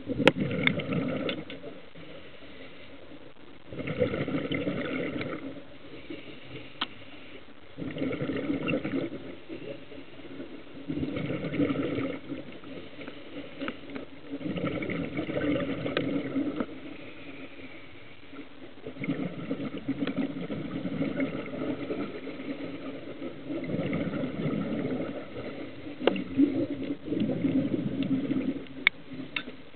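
A scuba diver's exhaled breath bubbling out of the regulator, heard underwater through a dive camera's housing: a bubbling rush lasting a second or two, about every four seconds, with quieter gaps for the inhale between. A few sharp clicks come in between.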